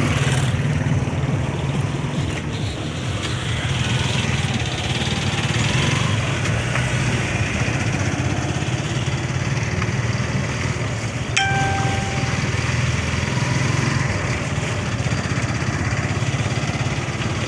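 Motorcycle engine of a tricycle running steadily as it rides, heard from inside the sidecar. A short high beep sounds once about eleven seconds in.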